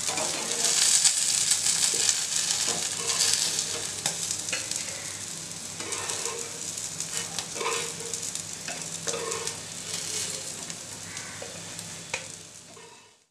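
Bombay duck (bombil) fillets sizzling in a little oil in a frying pan, while a metal spatula scrapes and taps the pan as the fried pieces are lifted out. The sizzle slowly fades and dies away near the end.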